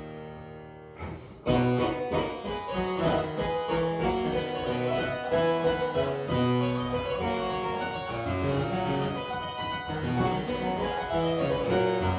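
Solo harpsichord playing a brisk instrumental passage. It comes in about a second and a half in, after the tenor's last held note has faded.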